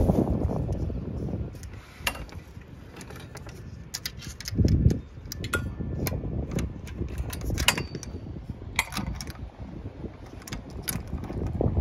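Wind buffeting the microphone in gusts, with scattered light metallic clicks and rattles from small hook-and-eye latches and chains being handled on the panel frames.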